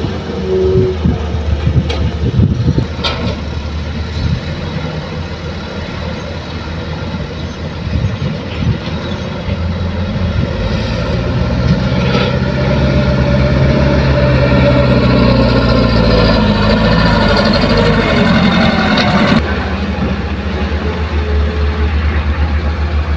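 Heavy diesel engines of a Kobelco excavator and a dump truck running, with an occasional knock. The engine swells under hydraulic load for several seconds past the middle, then drops back suddenly.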